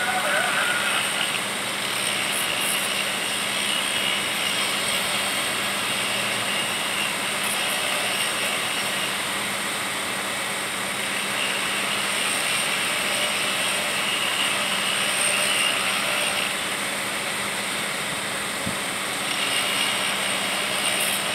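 Rail welding work on a railroad track: the equipment runs with a steady hum under an even noise, and a higher hiss comes and goes in three spells as the worker works the rail, throwing sparks.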